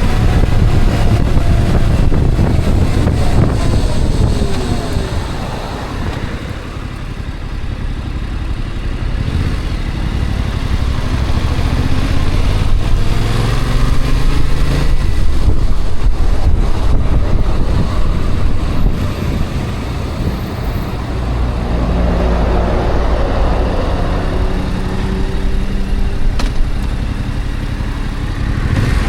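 A vehicle's engine and road noise while driving, loud and continuous. The engine note rises and falls several times and holds steady for a few seconds near the end.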